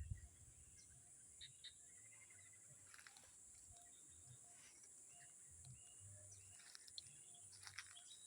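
Faint scattered chirping calls and short high peeps over a steady high-pitched insect drone.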